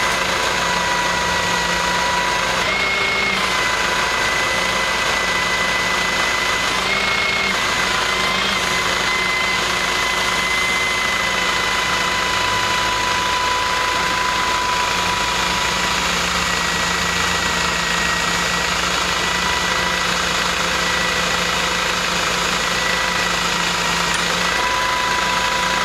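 Tow truck's engine running steadily during a winch pull. A steady high whine runs alongside it and briefly rises in pitch twice, about three and seven seconds in.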